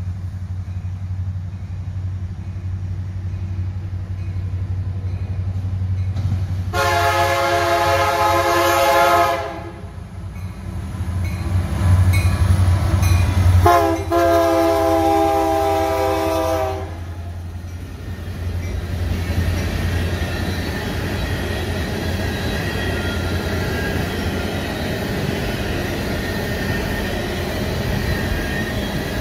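Freight train led by three Canadian National diesel locomotives (an SD75i, an SD70ACE and an ES44AC-H) approaching and passing: the engines' low rumble builds to its loudest as they go by, and the air horn sounds two long blasts, about 7 and 14 seconds in. After that the tank cars roll past with steady wheel noise on the rails.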